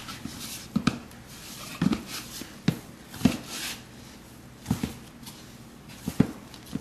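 Hands kneading oiled whole wheat dough in a bowl: soft, irregular thumps and squishes as the dough is pressed and turned, roughly once a second.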